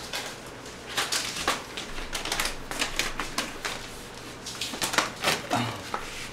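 A run of quick, irregular clicks and taps, like small objects being handled and knocked during clearing up.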